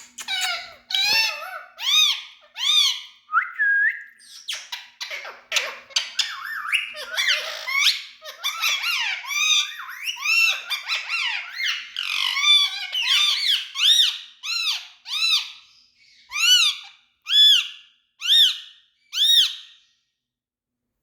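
Indian ringneck parakeet calling: a long run of short, loud, squeaky calls, crowded together at first, then slowing to about one call a second near the end before stopping.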